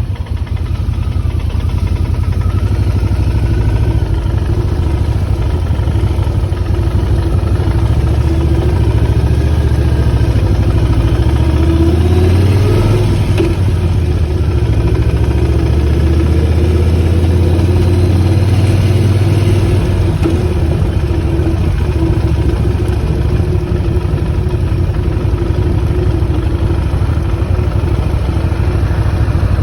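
Motorcycle engine running steadily just after starting, its low engine note growing stronger for several seconds near the middle.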